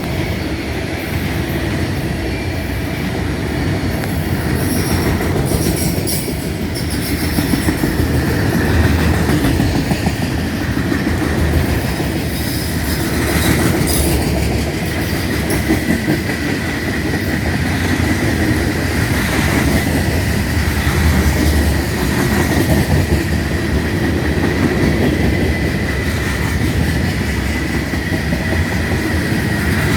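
Manifest freight train rolling slowly past, its cars' wheels clacking and rumbling over the rails. A thin, steady wheel squeal sets in about halfway through and carries on to the end.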